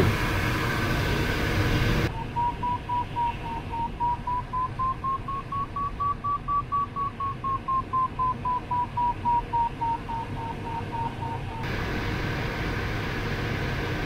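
Glider variometer beeping about three times a second, its pitch rising and then falling back, signalling that the glider is climbing in lift. A steady rush of cockpit airflow noise fills the start and end, where the beeping is absent.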